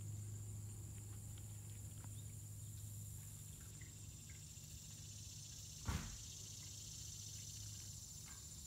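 Faint outdoor ambience: a steady high-pitched insect chorus over a low steady hum, with one sharp knock about six seconds in.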